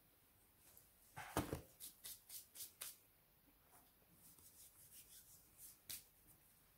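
Faint, close-up chewing of a bite of pizza, with a sharper crunch a little over a second in, a quick run of about five crunchy clicks, then softer ones toward the end.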